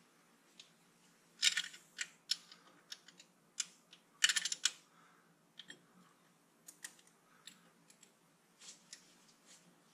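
Light metallic clicks and short rattles of a spanner on a valve rocker adjuster of a Land Rover Series 3 2.25-litre diesel, as a valve clearance set slightly too tight is adjusted. Two louder clusters of rattling clicks come about one and a half and four and a half seconds in, with scattered single clicks after.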